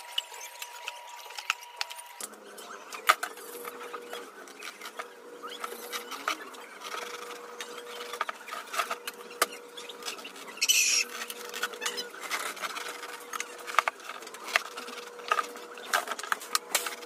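Knife cutting through an old rubber tire casing, giving irregular sharp clicks and squeaks, with a short hiss about eleven seconds in.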